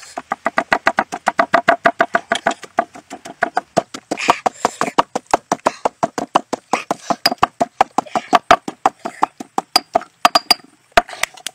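Pestle pounding salt and red chilies in a stone mortar, rapid steady strikes about five a second, each a sharp knock with a short ringing tone from the stone bowl, slowing to a few last strikes near the end. The chilies and salt are being crushed into a paste.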